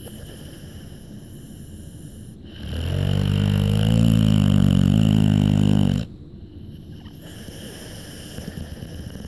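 American bulldog snoring: quiet rough breathing, then one loud, pitched snore that starts about two and a half seconds in, lasts about three and a half seconds and cuts off abruptly.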